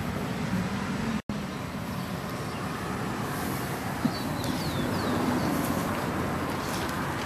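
Steady outdoor background rumble, with a few short high chirps about three and a half seconds in and a brief dropout just over a second in.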